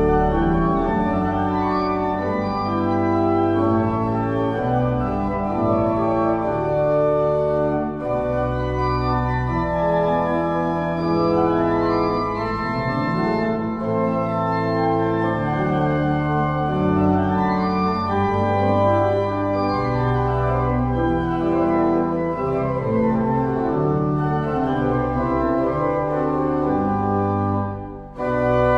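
Two-manual church organ playing a written piece: held chords over deep bass notes, with moving lines above. There is a brief break between phrases near the end.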